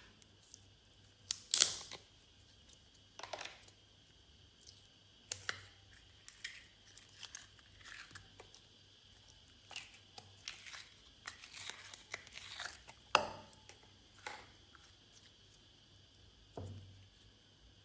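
Glossy slime being squished and stretched by hand, giving off irregular sticky pops and crackles, with a few sharper pops and a duller thud near the end.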